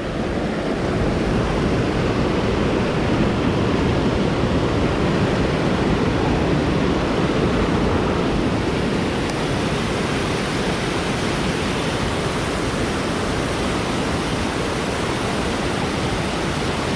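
Fast-flowing creek water rushing over rocks, a steady, unbroken roar of current.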